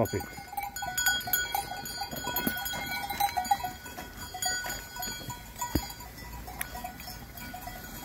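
Bells on a herd of goats clinking and ringing irregularly as the animals move about.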